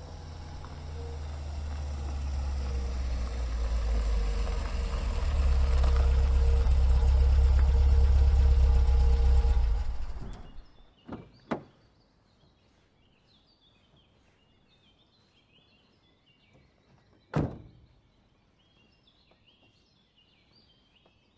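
Low rumble swelling over about ten seconds, then dying away. After it, faint bird chirping with a few dull thumps, before the song starts.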